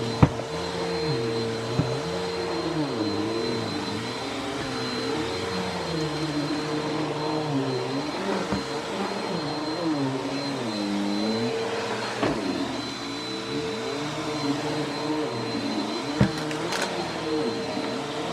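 Vacuum cleaner running on carpet, its motor pitch dipping and rising again and again as the load changes. A few sharp clicks come through, the loudest just after the start and about 16 seconds in.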